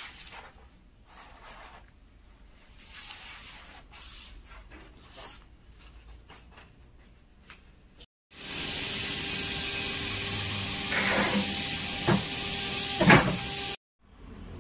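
Faint handling clicks and rubbing at first. Then, after a cut, a conveyor-fed woodworking machine runs loud and steady with a strong high hiss, with a few knocks near the end, and stops abruptly.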